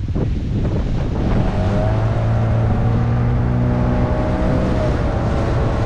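An engine running at a steady pitch, building from about a second in and then holding, over gusty wind noise on the microphone.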